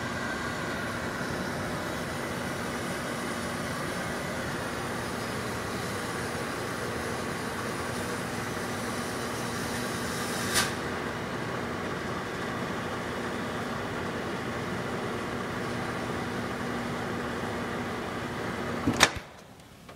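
Microwave oven running with an apple inside, a steady hum with its fan, and one short crackle about halfway through. Near the end the hum stops suddenly with a click.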